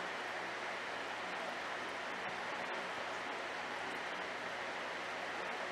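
Steady rushing, water-like hiss with a faint low hum underneath: aquarium filtration and aeration running.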